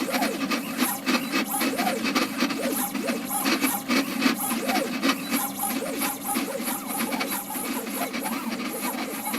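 Stepper motors of a CNC machine driving a pen plotter, whining in short tones that rise and fall in pitch as the axes speed up and slow down between strokes, with frequent ticks.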